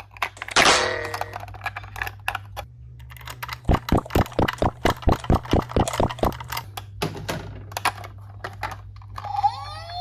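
Toy vehicles and their plastic packaging being handled, with scattered clicks and a brief rustle about half a second in. Around the middle comes a run of about a dozen sharp, even clicks, roughly four a second. Near the end a toy's electronic siren starts, rising in pitch.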